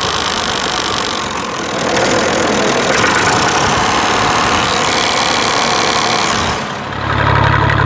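Massey Ferguson MF 240's three-cylinder Perkins diesel engine running at idle, close-miked beside its fuel injection pump. Near the end the sound shifts to a deeper, steadier hum.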